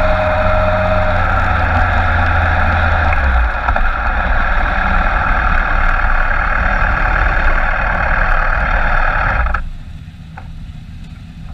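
Motorcycle engine running under way with heavy wind rush over an onboard camera. About nine and a half seconds in the noise drops suddenly, leaving the engine ticking over quietly.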